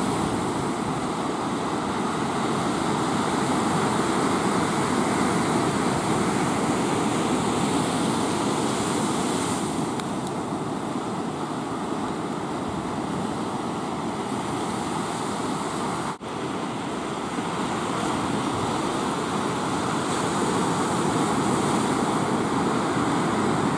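Steady wash of breaking ocean surf, cutting out briefly once about two-thirds of the way through.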